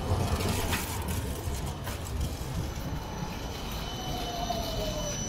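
Amsterdam tram running on its rails, a steady rumble with a whine that falls in pitch near the end.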